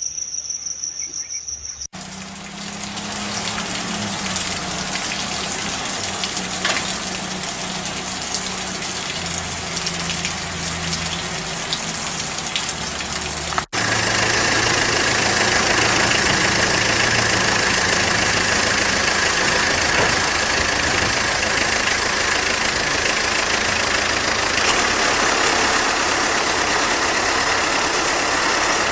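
A high, rapidly pulsing insect trill for about two seconds, cut off abruptly by a vehicle engine running under a steady noisy rush; about halfway through another abrupt cut brings a louder, even rush with the engine still faintly under it.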